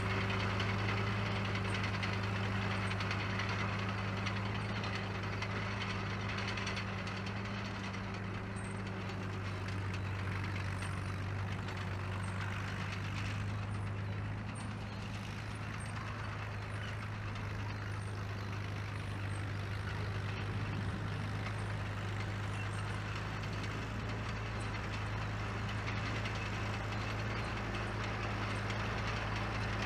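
1949 Caterpillar D2 crawler dozer's four-cylinder diesel running steadily under way, a little fainter about halfway through.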